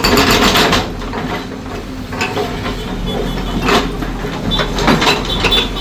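Heavy machine's diesel engine running steadily, with a rapid rattling burst for about the first second and a few separate knocks later.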